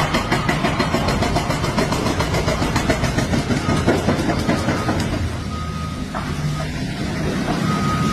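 Excavator diesel engine running hard with a fast, regular pulsing beat that eases off after about five seconds. A high beeping tone sounds on and off several times near the end, as from a machine's warning alarm.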